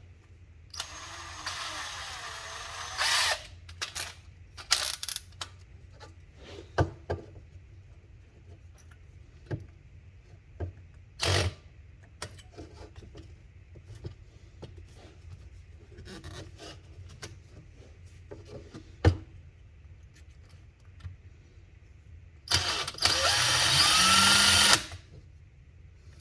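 Power drill with a small bit running in two short bursts, about a second in and near the end, each spinning up with a rising whine, with clicks and knocks of handling between. It is boring out a Zippo lighter's flint tube to clear debris that the owner takes for old flint that broke up and jammed, leaving the striker wheel spinning freely.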